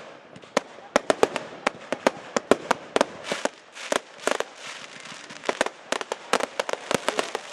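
Category 2 and 3 fireworks being fired in a rapid, irregular barrage: several sharp bangs a second from bursting shots, with a denser stretch of crackling about three to four seconds in.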